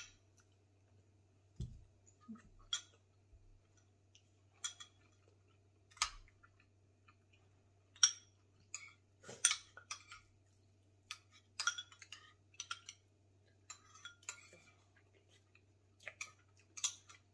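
Spoons clinking and scraping against ceramic soup bowls as two people eat, in scattered short clinks about one every second.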